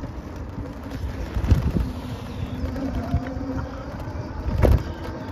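Wind rumbling over the microphone along with road noise from a bicycle ridden on a city street. A steady low hum runs for a couple of seconds in the middle, and there is a knock about a second and a half in and a louder jolt near the end.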